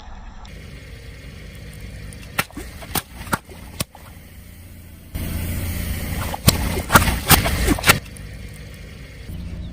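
Car tyre rolling slowly over brittle objects and crushing them: a low engine rumble with a few sharp cracks and snaps, then a louder run of cracks in the second half.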